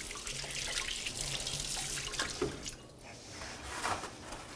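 Water running from a kitchen tap, shut off about two and a half seconds in.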